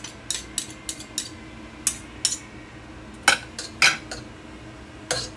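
A spoon clicking and tapping against a pot as rice, filling and butter are spooned in: about a dozen short, sharp clinks at irregular intervals.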